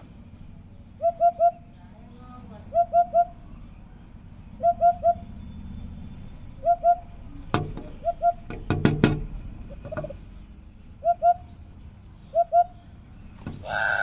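Eurasian hoopoe calling: short low hoots, mostly in threes, repeated about every two seconds. A few sharp knocks come in the middle.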